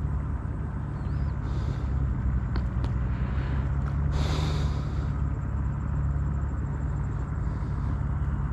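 A steady low rumble with a faint hiss over it.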